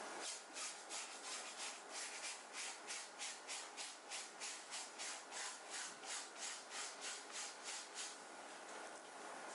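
Scrubbing at a stain on a shirt's fabric with quick back-and-forth strokes, about three a second, which stop about eight seconds in.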